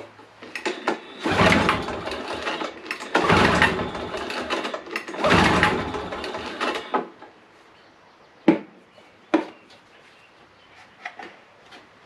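Three pulls on the recoil starter of a Toro commercial mower's Suzuki 5.5 hp two-stroke engine, each cranking it over for about a second without it starting; with the choke off, the engine may be flooded. A few sharp knocks follow.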